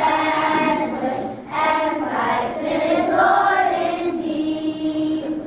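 A group of schoolchildren singing together, with held notes that drift up and down in pitch; the singing stops near the end.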